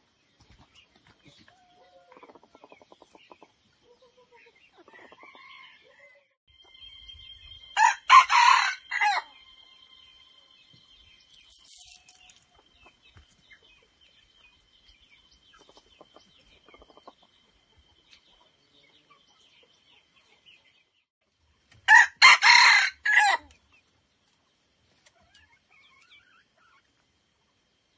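Male red junglefowl (wild rooster) crowing twice, each crow short and broken into a few quick parts, the two about fourteen seconds apart.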